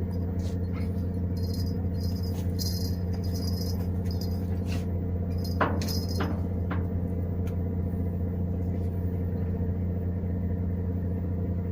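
A boat motor running steadily with a low hum, with spells of light metallic rattling in the first few seconds and a few sharp clicks near the middle.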